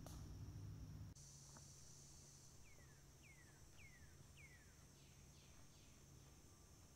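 Insects trilling steadily in a high, even band, with a bird singing a series of four clear down-slurred whistles from about two and a half seconds in, followed by three fainter ones. A low rumble cuts off abruptly about a second in.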